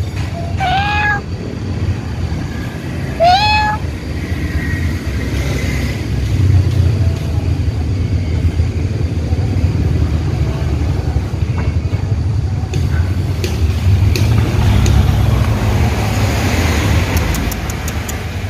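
Domestic cat meowing twice in the first few seconds, two short calls each rising in pitch, over a steady low rumble.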